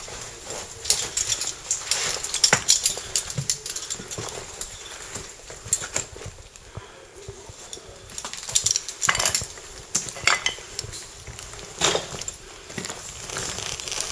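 Irregular clinks, knocks and scrapes of a caver clambering over rock, with metal caving gear clinking against the stone.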